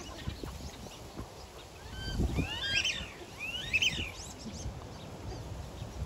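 Ducks calling: a flurry of high, rising-and-falling calls about two to four seconds in, over the rumble of strong wind on the microphone.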